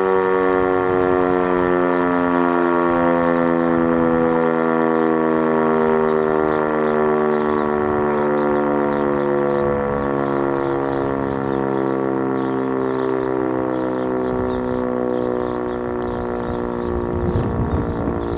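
E57 electro-mechanical siren, driven by a 5 kW three-phase motor, sounding during a fire-alarm test. Its chord of tones falls slowly in pitch as the rotor slows.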